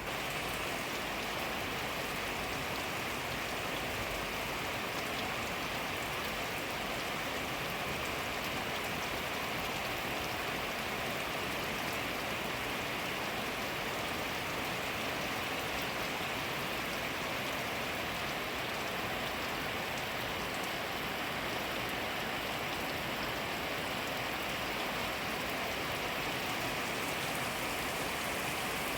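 Steady rain falling, an even hiss with a dense patter of drops.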